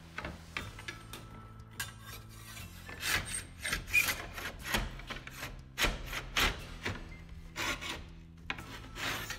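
Steel slate ripper scraping under roofing slates, worked against a hidden nail to pull it. Irregular short rasping strokes, louder and more frequent from about three seconds in.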